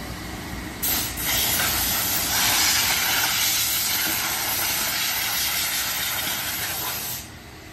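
Car-wash vacuum hose sucking air with a loud, steady hiss that starts suddenly about a second in, catches briefly, and cuts off near the end.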